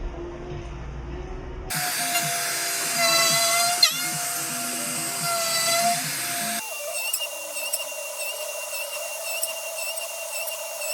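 Electric power tools running in three short clips joined by abrupt cuts, a motor whine in each. The whine dips in pitch every so often as the tool takes load; the middle clip is the loudest and noisiest.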